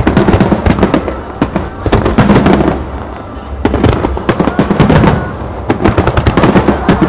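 Fireworks display: aerial shells bursting in rapid volleys, many sharp bangs in quick succession that ease off briefly about three seconds in before coming thick again.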